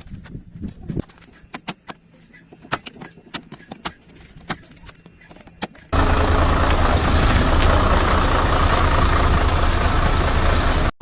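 Scattered light metal clicks and taps, then about six seconds in a loud, steady engine sound starts abruptly and runs on.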